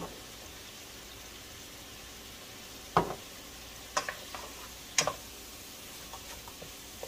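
Frozen broccoli and a pepper-and-onion blend sizzling steadily in olive oil in a frying pan, with a few sharp knocks against the pan, the loudest about three and five seconds in.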